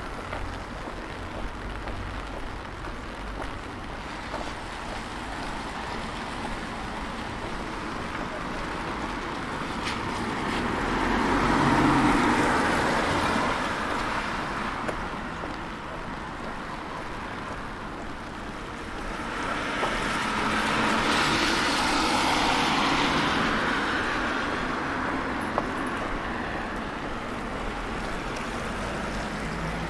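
Cars passing on a wet road, each a swish of tyres on water that swells and fades, twice: about twelve seconds in and again around twenty-two seconds in. A steady low hum of street traffic lies between.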